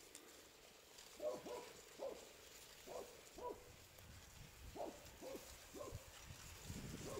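Faint, distant dog barking: a run of short barks, often two in quick succession, about nine in all.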